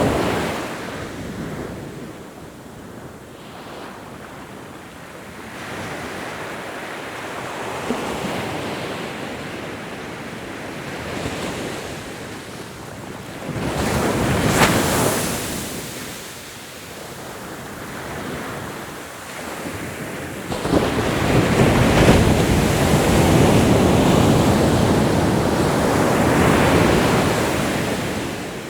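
Ocean surf: waves wash in and out, with one wave crashing about halfway through and a bigger, longer surge building a few seconds later before easing off near the end.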